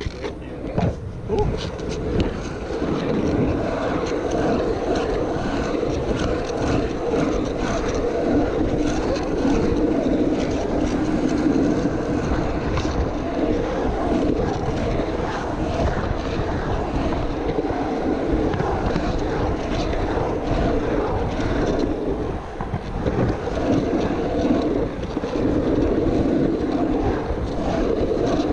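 Skateboard wheels rolling fast over an asphalt pump track: a steady rolling rumble, with wind on the microphone. A few sharp knocks in the first couple of seconds.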